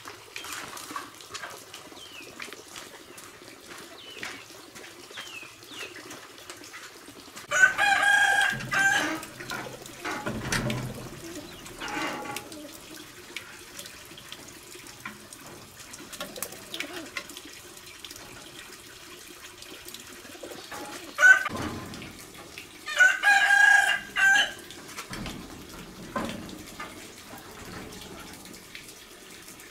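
A rooster crowing twice, each crow lasting about a second and a half, about eight seconds in and again near twenty-three seconds. A few dull knocks fall between the crows, over a steady background with faint small-bird chirps.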